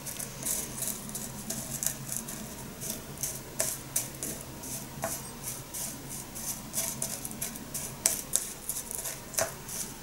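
Dry sencha leaves rustling and pattering as they are pushed by hand from a small cup into the narrow opening of a Yixing clay teapot, with a few light clicks of ceramic.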